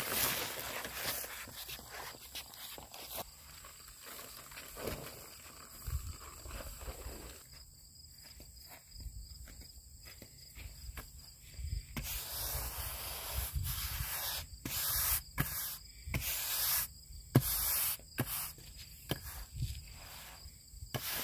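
Polymeric paver sand pouring out of a paper bag onto concrete pavers, then a push broom swishing and scraping in repeated strokes as the sand is swept into the paver joints. The broom strokes come fastest and loudest in the second half.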